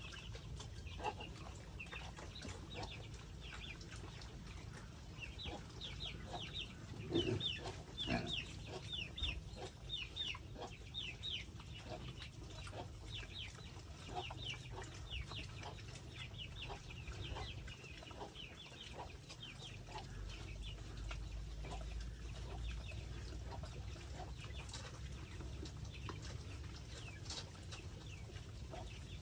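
Chickens clucking and peeping: a rapid run of short, high, falling chirps lasting about ten seconds, over scattered clicks and a steady low rumble.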